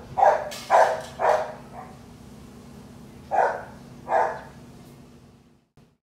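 A dog barking: three quick barks, a pause of about two seconds, then two more.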